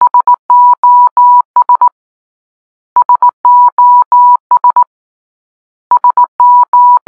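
Morse code SOS sounded as steady single-pitch electronic beeps: three short, three long, three short, starting again about every three seconds.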